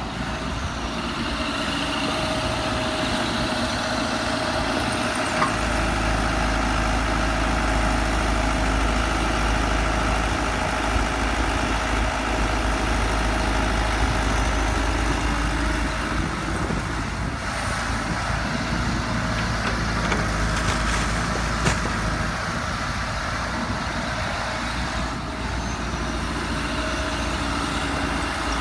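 Diesel engine of an old Komatsu hydraulic excavator running steadily, its low rumble growing stronger about five seconds in.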